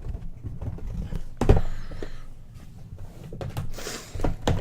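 Cardboard boxes of trading cards being handled and set down on a table. There is a sharp knock about a second and a half in and a few more knocks near the end, with low handling noise between.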